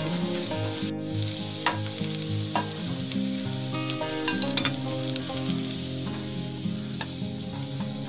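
Batter-coated cauliflower florets sizzling as they deep-fry in hot oil in a kadai, with a few sharp clinks of a metal slotted skimmer against the pan as the fried pieces are lifted out.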